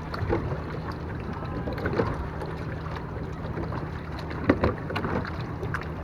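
Water splashing and lapping against a small boat's hull as it moves along, over a steady low rumble of wind on the microphone; a sharper knock or splash about four and a half seconds in is the loudest moment.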